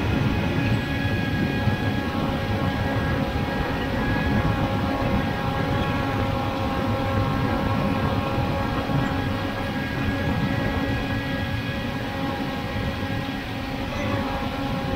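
Steady whine of a multirotor drone's motors and propellers: several fixed tones over a rushing noise, holding level throughout.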